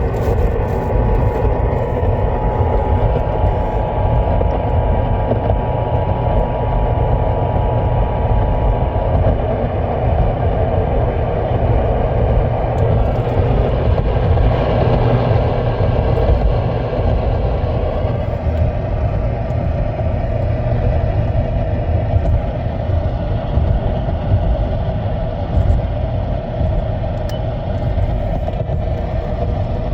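Emergency Alert System two-tone attention signal, faint and buried under heavy steady noise for about the first nine seconds; after that only the steady noise continues.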